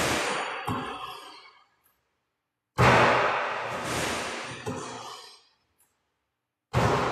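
A short edited-in sound effect repeated with each shot. Each one starts abruptly and fades over about two seconds, with dead silence between repeats. One begins about three seconds in and the next near the end.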